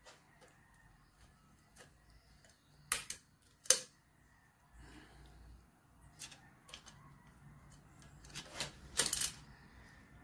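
Sharp metallic clicks and taps of a thin steel tool prying at a stuck valve spring retainer and its keepers on a Suzuki Hayabusa's aluminium cylinder head. Two loud clicks come a few seconds in, then a quick cluster near the end.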